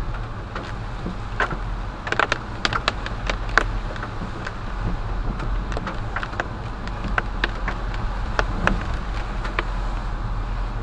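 Car driving on a wet street in the rain: a steady low road and engine rumble, with irregular sharp taps of raindrops hitting the windshield and roof.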